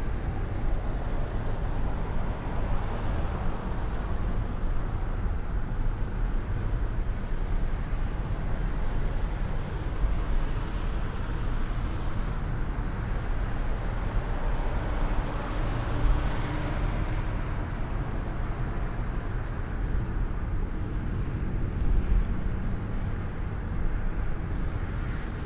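Road noise from a moving car on a snowy road, heard inside the cabin: a steady low rumble of tyres and road, swelling a couple of times as other cars pass.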